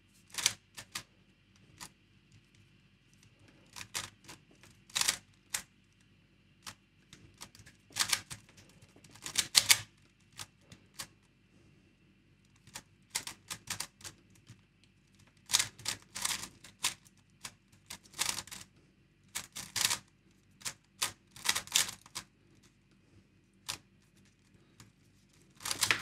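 A GAN 3x3 speed cube being turned by hand in a full CFOP solve: quick runs of light plastic clicking as the layers snap round, broken by pauses of a second or more between steps.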